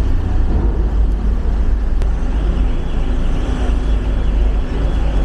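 Steady, loud low rumble of vehicle engines running.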